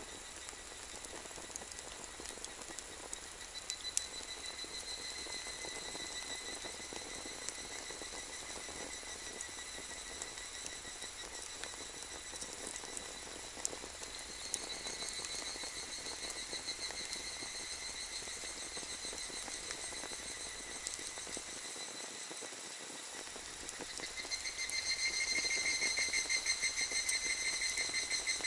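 Wood fire crackling in a small metal fire stand, with a few sharp pops, over the steady pulsing trill of insects that grows louder near the end.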